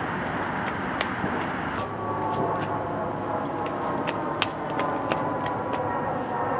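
Outdoor city ambience: a steady rumble like distant traffic, with scattered faint clicks, and a droning engine-like hum joining about two seconds in.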